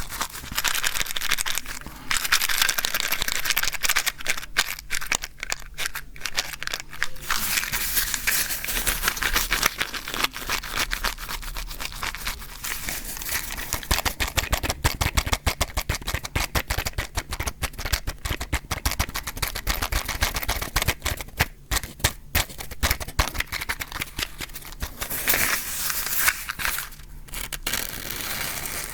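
Close-miked matches and matchbox being handled: rattling, scraping and crackling in a dense run of small clicks.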